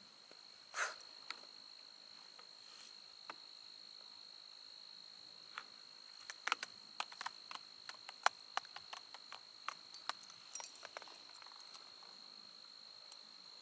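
Evening insect chorus: a steady high-pitched trill that holds one pitch throughout. Over it, a short rustle about a second in, then a run of irregular sharp clicks and ticks through the middle.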